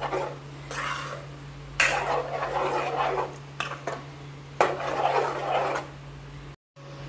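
A spoon stirring and scraping in a cooking pot of chicken curry, in three bursts of a second or more each, over a steady low hum.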